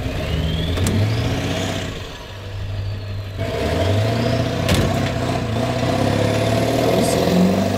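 Pickup truck engine running under load as it tows an armored car, the pitch rising as it pulls. It eases off about two seconds in, then pulls harder and steadier again from about three and a half seconds.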